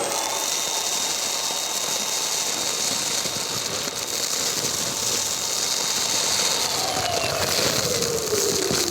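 Kärcher WD wet-and-dry vacuum running with its bulk waste kit: a steady rush of air with a thin high whine. About seven seconds in, the whine drops in pitch.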